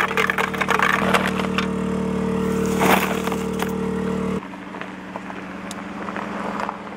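A steady mechanical hum, like a running motor, under clicks and crinkles of equipment and plastic being handled; about four seconds in the hum drops away abruptly, leaving a fainter hum and scattered clicks.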